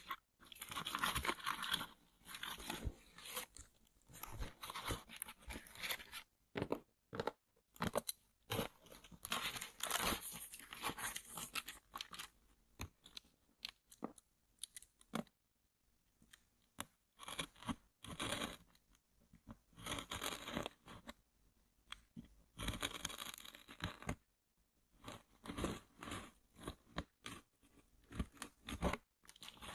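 Close-miked handling of headphone packaging: irregular bursts of crunching, scraping and tearing on cardboard and paper, with short pauses between them.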